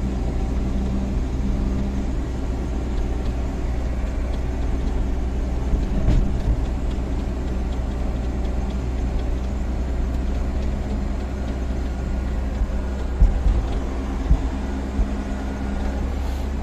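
Heavy diesel machinery engine running steadily under work, with a few short knocks about six seconds in and again around thirteen to fourteen seconds in.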